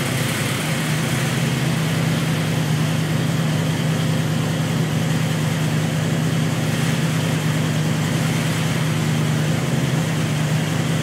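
Danzio-built 347 small-block Ford V8 in a Ford Ranger race truck running on a chassis dyno, holding a steady engine note with no revving.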